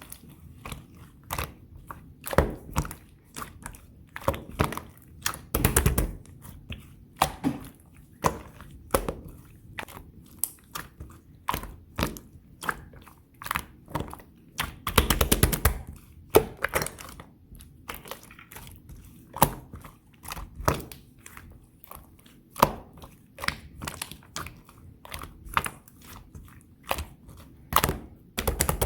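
Thick, chewy slime being squeezed and pressed by hand, giving irregular sharp clicks and pops as trapped air bursts. About fifteen seconds in there is a quick run of crackling pops.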